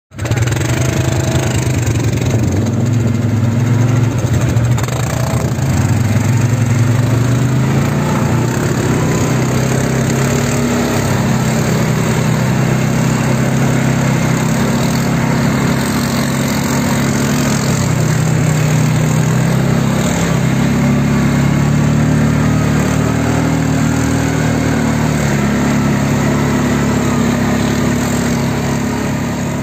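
ATV (quad bike) engines running steadily under load as the quads drive through shallow water on a flooded, muddy track. The engine note rises and falls as the throttle changes.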